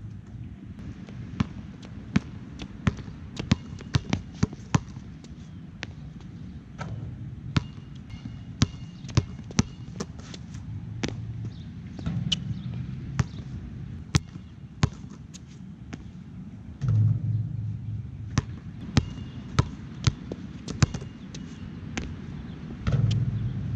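Nike Jordan Hyper Grip 4P basketball bouncing: a long run of sharp, irregularly spaced bounces, some bunched several to a second. A low rumble swells twice, about 17 seconds in and near the end.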